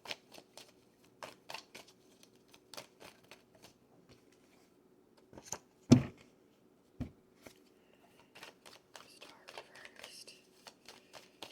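Tarot cards being shuffled and handled, a run of light papery flicks and clicks, with a dull thump about six seconds in and a smaller one a second later.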